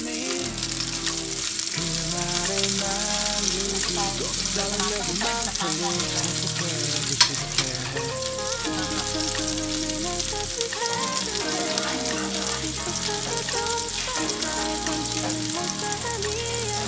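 Beef steak sizzling steadily in hot oil in a nonstick frying pan, with background music playing. About seven seconds in come two sharp clicks of the metal tongs set against the pan.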